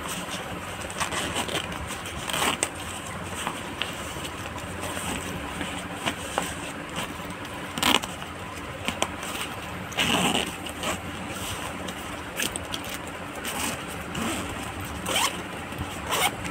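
Hands handling a fabric backpack: zippers being pulled and the polyester fabric rustling and scraping, in short strokes at irregular intervals over a steady background hiss.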